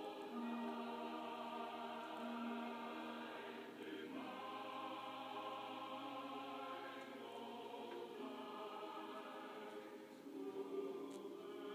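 A choir singing slow, sustained chords, the notes changing every second or two.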